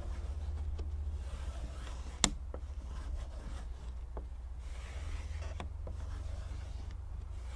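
Hands rubbing and pressing paper transfer tape over a vinyl decal against a car window, a faint rustle with a few light clicks and one sharp click about two seconds in. A steady low rumble runs underneath.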